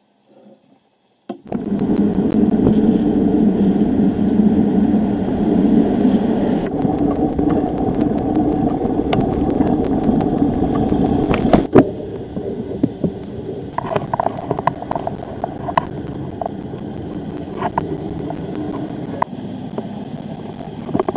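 City street traffic noise with wind rumbling on the microphone, dropping to a lower level about halfway through, with scattered short sounds.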